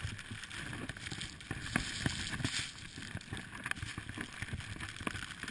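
Skis turning through deep powder snow: a steady rushing hiss broken by frequent small knocks and thumps.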